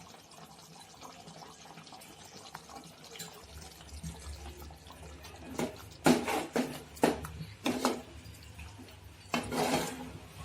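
A spoon working thick, wet chicken gravy in a pan, just after curd has gone in: a run of short squelching, scraping strokes about halfway through, the loudest near the end.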